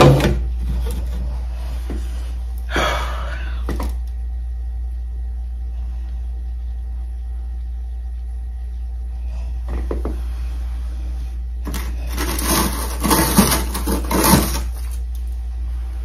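Hard knocks, then a run of scraping clatter of hard objects near the end, as a humidifier iced into freezer frost is worked loose. A steady low hum runs underneath.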